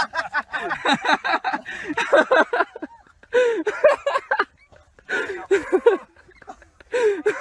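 A person laughing in bursts of quick, falling syllables: a long run of laughter, then three shorter bursts with pauses between.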